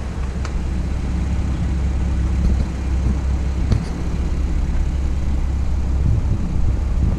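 Toyota GR Supra (A90) being driven: a steady low rumble from the road and drivetrain, with a few faint, light knocks.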